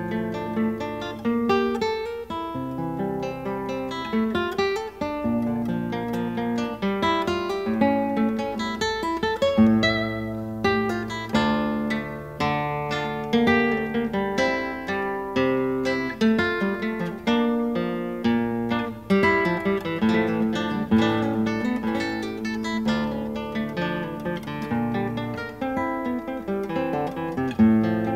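Background music: acoustic guitar played with plucked and strummed notes.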